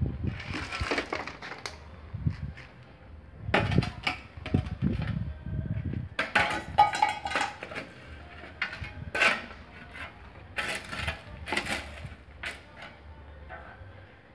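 A hand tool scraping and striking broken concrete rubble, with irregular gritty scrapes and clinks of concrete chunks coming in bursts every second or two.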